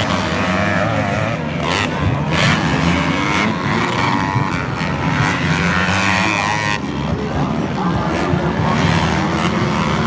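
Motocross dirt bike engines revving and running round a dirt track, their pitch rising and falling with the throttle; the sound thins out about two-thirds of the way through.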